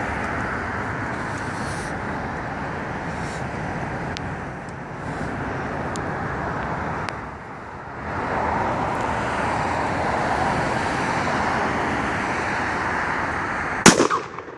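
Steady road traffic noise, then near the end a single sharp gunshot, fired to put down a deer injured by a car.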